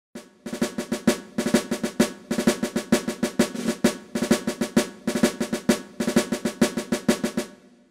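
Intro music of rapid drumming: quick snare-drum strokes in clusters like rolls, fading out near the end.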